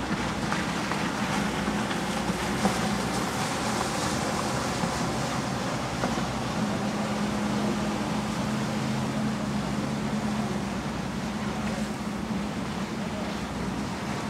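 Wind on the microphone and water rushing past a ship's bow as it sails through a strait, under a low engine hum that grows stronger for a few seconds in the middle.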